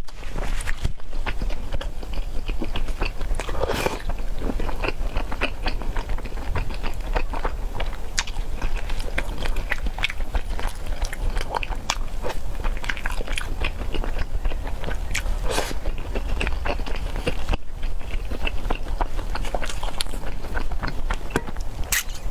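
Close-miked eating of spicy peanut chicken: continuous biting and chewing with a steady run of small moist clicks and crackles.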